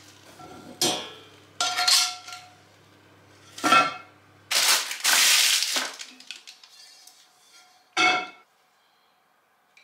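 Cast iron cookware clanking: metal tongs and a heavy cast iron lid knock against a cast iron Dutch oven several times, with a rough scrape of about a second just before the midpoint. Near the end the skillet-style cast iron lid is set down on the gas hob's grate with one ringing clank.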